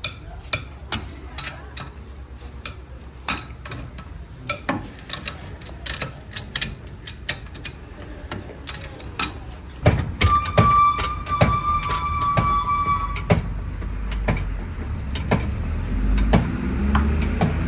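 Workshop tool sounds as a car's rear wheel is taken off: irregular metallic clicks and knocks, then a steady whine for about three seconds midway, followed by a low rumble.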